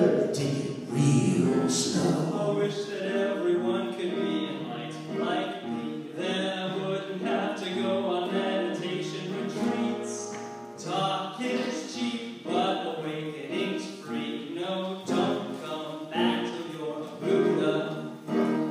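Voices singing a song, with sung notes held and changing pitch throughout.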